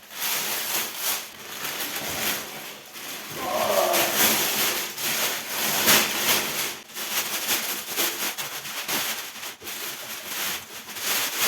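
Plastic packaging rustling and crinkling irregularly as it is handled and pulled off a mixing console, with a short murmured voice about four seconds in.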